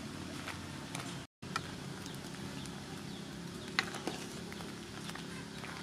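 Metal ladle stirring in an aluminium pot of simmering soup, with a few light clicks and knocks against the pot over a steady low background noise. The sound cuts out completely for a moment about a second in.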